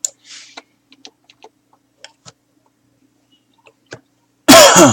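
Light scattered clicks and taps of trading cards being handled and sorted. Near the end comes a loud, short sound of about half a second with a falling pitch.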